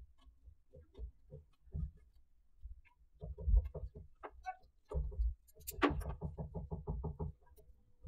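Light irregular knocks and handling noise from hands twisting the thin copper wire ends of an Ethernet cable over a tabletop, with a quick run of rapid ticks about six seconds in.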